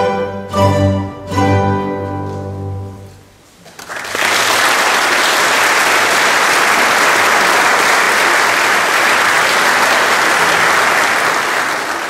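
An ensemble plays its final chords, which ring out and die away. About four seconds in, the audience breaks into steady applause.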